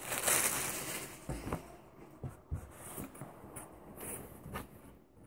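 Soft rustling of cloth and packaging as a t-shirt is taken out and unfolded, with a brief louder rustle near the start, then faint scattered handling sounds.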